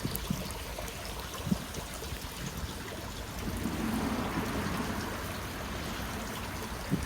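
Water flowing steadily through a swollen, rain-fed channel, growing a little louder for a few seconds past the middle.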